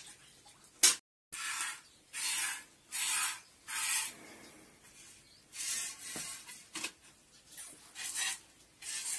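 Milk squirting into a pail as a buffalo is hand-milked: a regular run of short hissing squirts, a little over one a second, with a brief pause near the middle. A sharp click about a second in.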